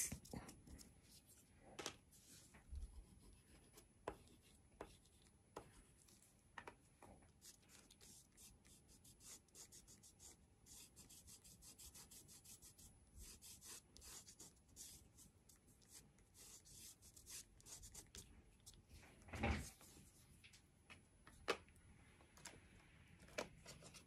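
Faint rubbing of fingertips on paper, a run of short soft strokes, smudging blue wax crayon into a white crayon base coat. A single louder thump comes about twenty seconds in.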